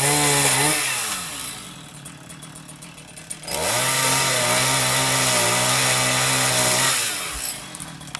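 Chainsaw cutting tree limbs. It runs at high revs at the start, drops back to idle for about two seconds, then revs up again for about three seconds before winding down near the end.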